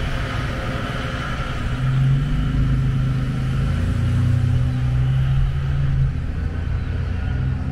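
A car engine running close by, a steady low hum over the noise of the street.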